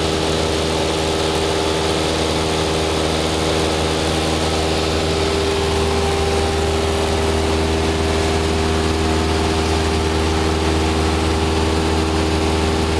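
Single-engine high-wing light aircraft's piston engine and propeller droning steadily in flight, heard inside the cabin with a hiss of rushing air.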